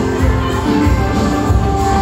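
Loud recorded dance music played over a sound system, with a heavy steady bass.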